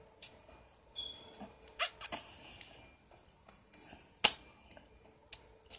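A few sharp clicks and knocks at irregular intervals, the loudest about four seconds in, with a brief high squeak about a second in.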